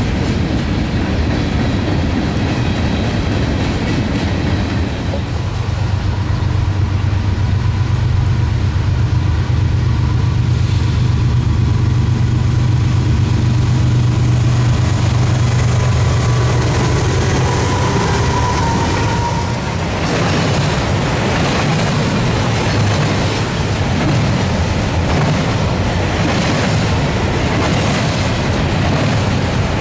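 Diesel freight trains passing: first the steady rumble of rolling freight cars, then the low drone of diesel locomotives building as they come close. About two-thirds of the way through, the drone gives way to the clatter and rattle of double-stack container cars rolling past, with wheels clicking over rail joints.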